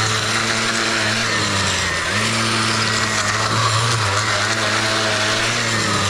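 Two-stroke engine of a gas stick edger running at high throttle as its blade edges turf along a concrete sidewalk, with a steady hiss from the blade cutting grass and dirt. The engine note dips briefly about two seconds in, again around four seconds and near the end, then comes back up.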